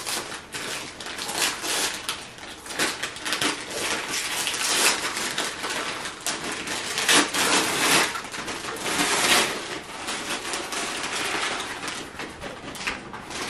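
Christmas wrapping paper being torn and crumpled by hand as a present is unwrapped: a run of crackling, ripping rustles in uneven bursts.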